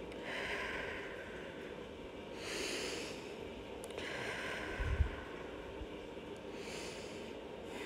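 A person breathing slowly and audibly, about four soft breaths. A short low thump comes about five seconds in.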